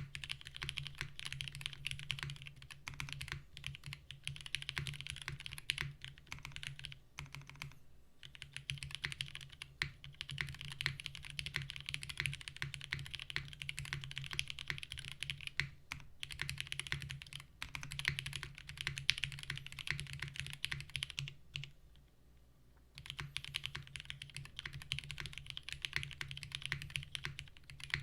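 Continuous typing on a mechanical keyboard, a Kalam Unikorn clone with lubed Cherry MX Black Hyperglide linear switches and GMK keycaps on a gummy O-ring mount; steady runs of keystrokes with a few brief breaks and one longer pause about three-quarters of the way through.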